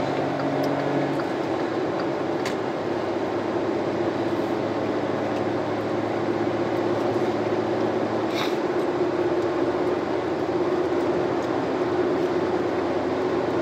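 Steady road and engine noise inside a Volkswagen up! cruising at highway speed: an even rush of tyres and wind with a constant engine hum underneath.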